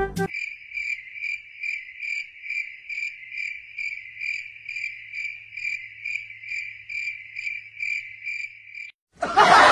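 Cricket chirping sound effect: a steady high trill pulsing about twice a second, starting abruptly and cutting off suddenly near the end. Loud laughter bursts in just after it stops.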